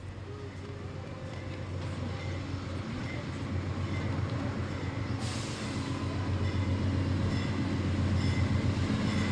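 Amtrak diesel-hauled passenger train arriving at a station, its locomotive engine drone growing steadily louder as it draws near, with faint high squeals from the wheels and brakes. A sudden hiss of air starts about five seconds in.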